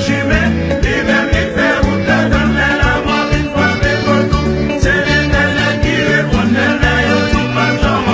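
Upbeat music with singing over a steady bass beat.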